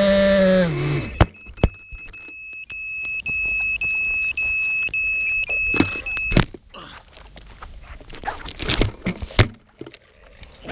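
FPV quadcopter's motors running, then spooling down with a falling pitch about a second in as it lands, with a knock as it hits the grass. A steady high electronic beep then sounds for about four seconds, followed by scattered knocks and rustling.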